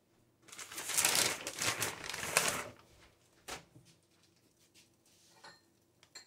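Plastic bag of shredded cheese crinkling for about two seconds, then a single light tap and faint rustles as the cheese is spread by hand.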